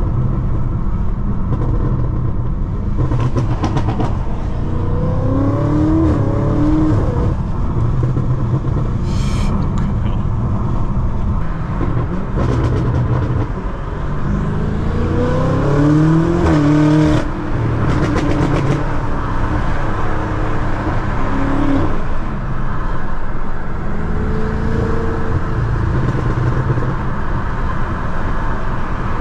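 BMW M5 F90's tuned twin-turbo V8, heard from inside the cabin, accelerating hard twice with revs rising in steps through gear changes, about five seconds in and again around fifteen seconds in. Sharp crackles come as the throttle is lifted. Underneath is a steady drone of engine and tyres on a wet road.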